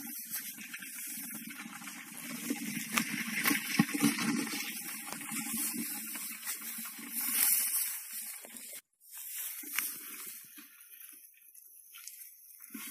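Hands pushing through rice stalks and digging in muddy water at a crab hole: rustling of the plants with splashing and squelching of mud and water. The sound cuts out briefly about nine seconds in.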